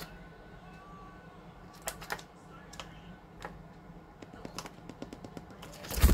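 Scattered light clicks and scratches from a small pet owl moving about on a plastic perch, over a steady low hum. Right at the end comes a loud flurry of wingbeats as the owl takes off.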